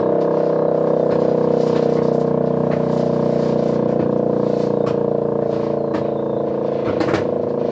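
E57 electromechanical siren sounding the fire alarm signal, holding a steady tone at full pitch. A few short knocks, the strongest about seven seconds in.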